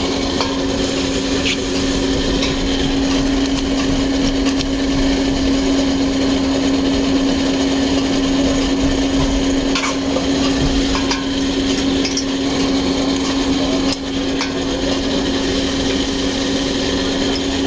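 A workshop machine's motor running with a steady hum, with a few light clicks and knocks and two short bursts of high hiss.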